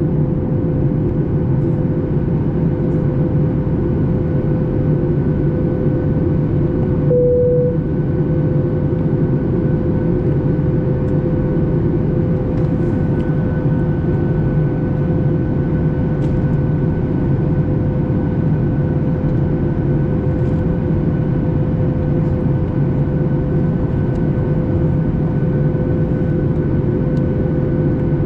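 Steady in-flight cabin noise of a Boeing 737 MAX 8: a constant low rush of engine and airflow with a steady hum running through it, the hum briefly louder about seven seconds in.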